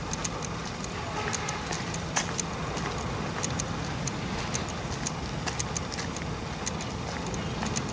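Footsteps on a paved path, light sharp taps about every half second, over a steady low rumble.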